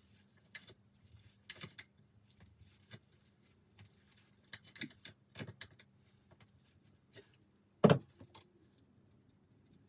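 Scattered light metallic clicks and knocks as a spoke key works the spoke nipples loose on an old steel bicycle wheel, with one louder knock about eight seconds in.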